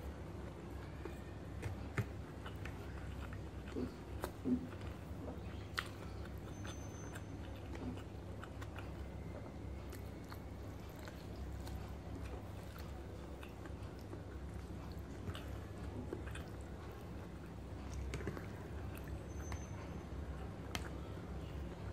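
A person eating rice and squid adobo by hand: soft chewing and mouth sounds with scattered sharp clicks, the loudest about two and four and a half seconds in, over a steady low hum.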